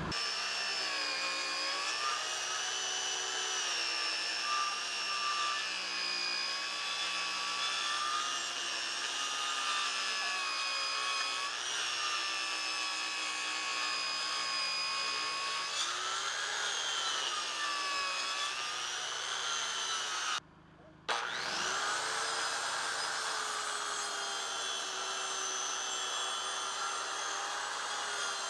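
Table saw ripping a rough-sawn board along its edge, the motor's pitch dipping and recovering as the blade is loaded by the cut. The sound drops out briefly about twenty seconds in, then the sawing continues.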